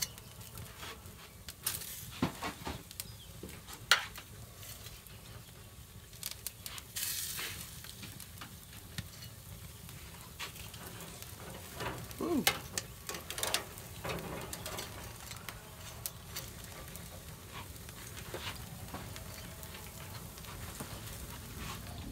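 Charcoal coals in an open Weber Smokey Mountain smoker sizzling and crackling under the meat, with scattered sharp clicks and clinks of metal tongs against the steel cooking grate, busiest about twelve seconds in.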